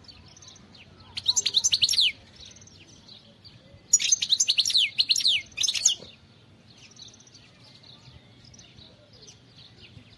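European goldfinch (Carduelis carduelis) singing: a loud burst of rapid, falling high notes about a second in, and a longer burst from about four to six seconds in, with soft twittering between.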